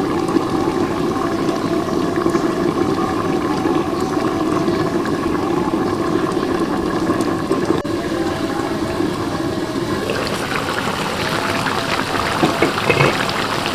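Chicken simmering in a chili sauce in an aluminium wok under a glass lid, a steady bubbling boil as the chicken stews until tender. About ten seconds in the bubbling turns more open as the wok is uncovered.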